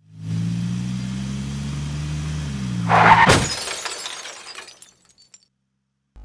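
Car crash sound effect: a steady engine hum, then about three seconds in a loud impact with shattering glass, the glass tinkling away over the next couple of seconds.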